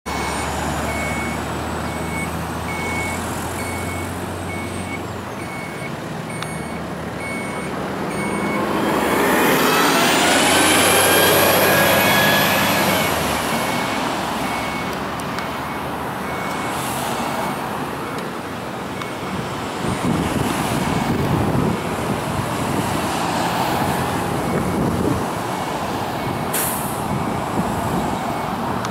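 Roadside traffic: a vehicle passes close by, loudest about ten to twelve seconds in, while a reversing beeper sounds about once a second throughout. A low engine hum runs under the first half.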